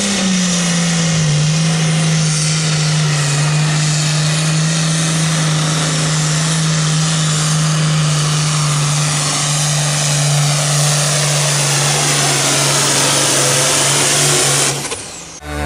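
Altered stock pulling tractor's diesel engine running hard at high, nearly constant revs under load during a pull. The pitch sags slightly about a second in, then holds steady until the sound cuts off abruptly near the end.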